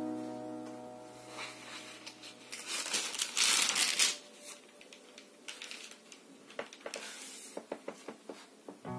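A photo album's stiff pages being handled and turned, with a loud rustle and crinkle about three seconds in, then smaller rustles and taps. Background music fades out at the start and comes back at the very end.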